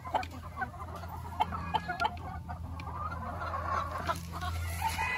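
Flock of white-crested Polish chickens clucking close by, a scatter of short, soft calls that overlap and come every fraction of a second.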